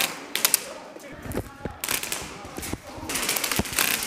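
Airsoft rifle firing a few quick shots, sharp cracks that are loudest in the first half second, with more scattered shots and clatter as the player moves.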